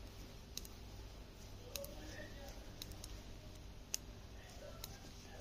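Metal knitting needles clicking faintly and irregularly, about six clicks over five seconds, as stitches are knitted by hand.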